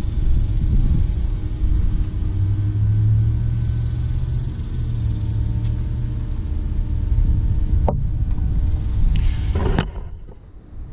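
Low, steady rumble with an engine-like hum, as of a motor vehicle running; it cuts off suddenly near the end.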